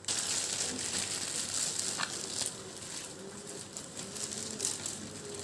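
Rustling and crinkling of packaging being handled, with a single sharp click about two seconds in.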